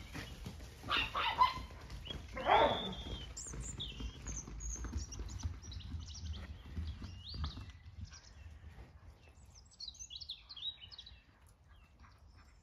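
Two loud animal calls, about a second and two and a half seconds in, the second sweeping downward in pitch, then small birds chirping on and off.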